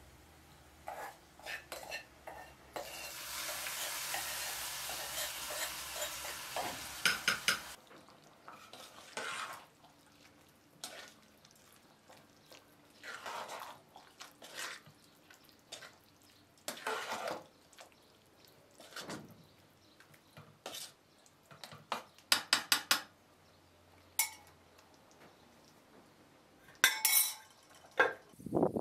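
Aluminium cooking pot on a gas burner. A steady hiss lasts about five seconds while a small pan is poured into it. Then a slotted metal spoon scrapes and knocks against the pot as rice is stirred, and the metal lid clanks back on near the end.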